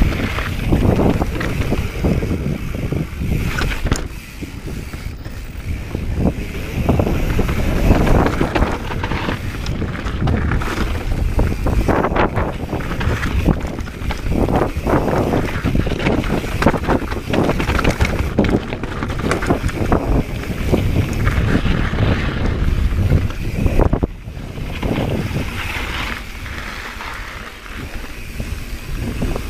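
Mountain bike descending a rough rock-and-dirt trail: wind buffeting the camera's microphone over the rumble of knobby tyres on dirt and rock, with the bike rattling and clattering over bumps. Loudness varies, with quieter stretches about four seconds in and again near the end.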